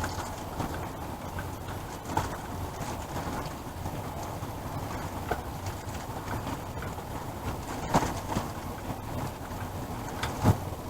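Steady rain noise with a few sharp knocks and clunks as donated items are handled and set down in the box; the loudest knock comes near the end.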